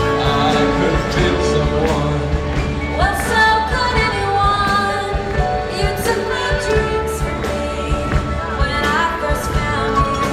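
A rock band playing live: guitars and drums with singing, mid-song in a folk-rock Christmas ballad.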